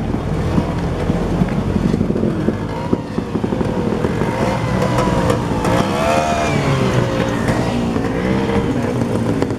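Motorcycle passing on the road, its engine pitch rising and then falling about halfway through, over a steady low engine rumble.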